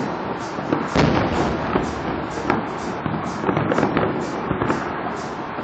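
Aerial fireworks shells bursting in quick succession, a string of bangs and crackles over a steady background hiss. The loudest bang comes about a second in, and a rapid cluster of reports follows in the second half.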